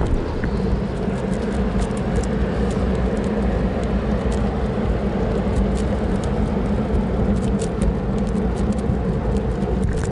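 Large ship's diesel engine droning steadily on the canal, a low hum with an even rumble underneath, with light clicks and rustles from the cats shifting in the wire bike basket.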